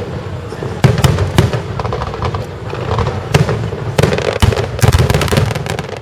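Aerial fireworks display: a run of booming shell bursts, a few seconds apart, then a dense cluster of crackling reports about five seconds in.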